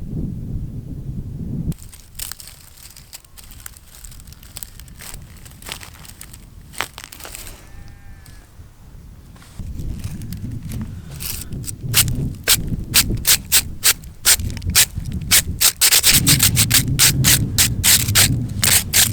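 Wind buffeting the microphone in gusts, with a run of crunching, rustling clicks that grow louder and come thick and fast in the second half.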